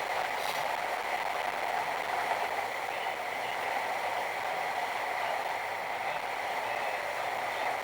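Steady noise of a car driving in heavy rain, heard through a dashcam's microphone: rain and tyres on the wet road. A brief faint click about half a second in.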